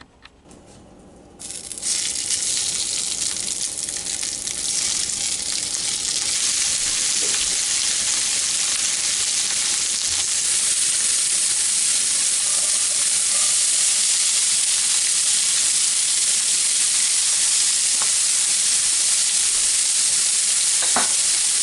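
Sausage frying in a hot pan: a sizzle starts suddenly about a second and a half in, builds over the next several seconds, then holds steady and loud, with a few faint clicks.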